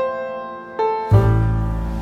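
Background piano music: single notes struck roughly every half second, with a low bass and fuller accompaniment joining about halfway through.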